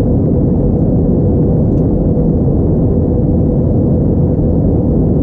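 Cabin noise of an Airbus A321-231 in flight: the steady low rumble of its IAE V2500 turbofans and the airflow over the fuselage, heard inside the cabin at a window seat, with a faint steady hum under it.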